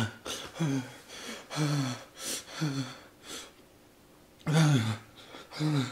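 A man breathing hard through a burning mouth after eating the Paqui One Chip: quick hissing in-breaths alternating with short voiced "hah" out-breaths that fall in pitch, about one a second, the loudest about four and a half seconds in. It is his reaction to the chip's extreme chili heat.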